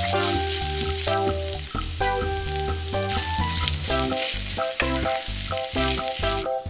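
Kkakdugi fried rice sizzling in a frying pan, with background music playing over it throughout.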